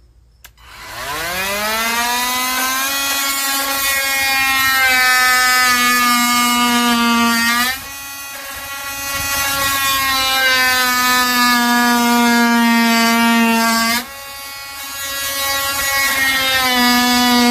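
KIMO 20V cordless oscillating multi-tool running: its motor spins up to a steady high buzzing whine, drops abruptly in speed twice, about 8 and 14 seconds in, then climbs back up to full speed.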